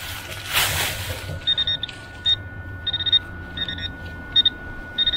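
Handheld metal-detecting pinpointer probe beeping in short, irregular bursts as it is worked over a shallow target in the soil, over a steady high tone. A brief scraping rustle comes about half a second in.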